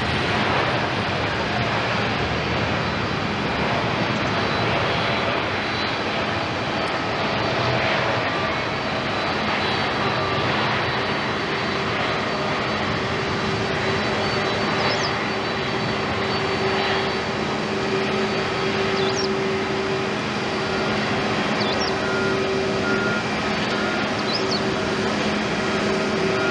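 Boeing 787-8 airliner's Rolls-Royce Trent 1000 turbofans at takeoff thrust as it rolls down the runway and lifts off: a steady jet engine noise with a low hum, and a clearer steady tone coming in about ten seconds in.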